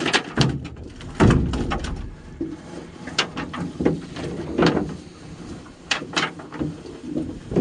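Irregular knocks and rattles of a fishing net being hauled by hand over the side of a metal boat, with a heavier thump about a second in.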